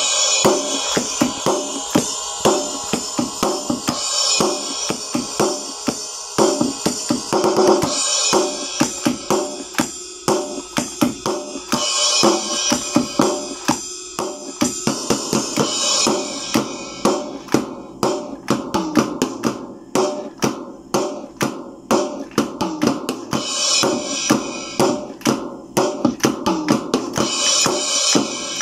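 Portable electronic drum pad playing a steady drum-kit beat: kick, snare and hi-hat sounds, with a crash cymbal about every four seconds and a busier stretch in the middle.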